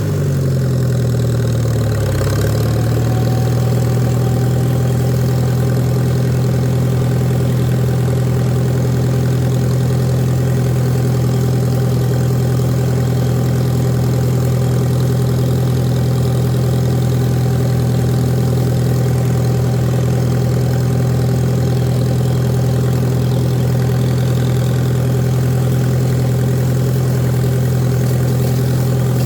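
Tractor engine running steadily at an even speed. Its pitch sags briefly and recovers about two seconds in.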